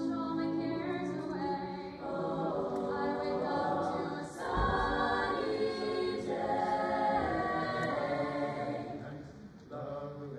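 Mixed-voice high-school chamber choir singing a pop arrangement in close harmony on held chords, getting louder about four and a half seconds in and easing off near the end.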